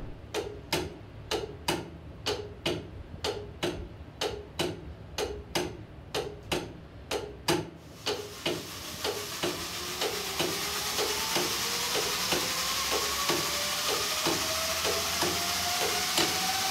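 Foghorn compressor plant, driven by 1951 Kelvin K-series diesel engines, running with a steady low drone and a regular mechanical clacking about twice a second. About halfway through, a loud hiss starts, with a whistling tone that rises steadily in pitch.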